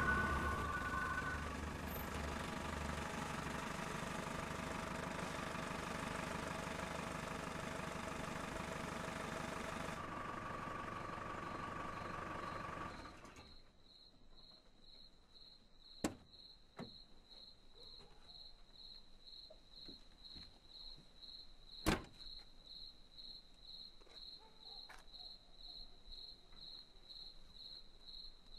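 Car running, heard from inside the cabin, stopping about halfway through. Then crickets chirp steadily, about twice a second, broken by two sharp knocks of the car door, the second one louder.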